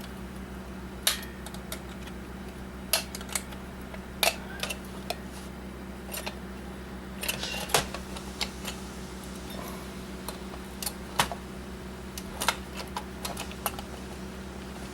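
Irregular small clicks and taps of a screwdriver and handled metal parts on an original Xbox motherboard, with a steady low hum underneath.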